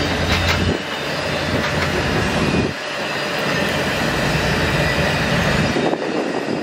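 Passenger cars of the Canadian Pacific Holiday Train rolling past close by: a steady rumble and clatter of steel wheels on the rails. The deep rumble dips a few times as the cars go by.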